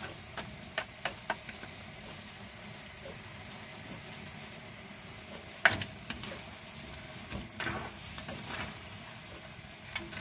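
Yabbies sizzling in a wok as a spatula stirs them, with a steady hiss and scattered clicks and knocks of the spatula against the pan. The loudest knock comes a little past halfway.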